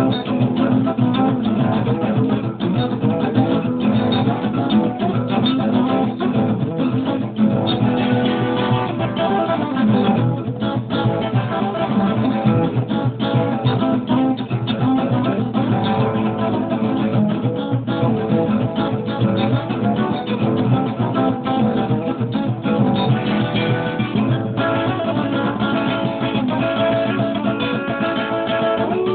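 Solo acoustic guitar playing an instrumental piece: a steady stream of quick plucked notes.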